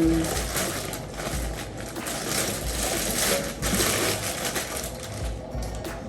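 Crinkling and rustling as a packaged electric coffee grinder is unwrapped and handled, in uneven patches.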